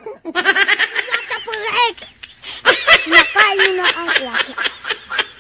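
Children laughing hard, in two long bouts of rapid, high-pitched giggling with a short pause between.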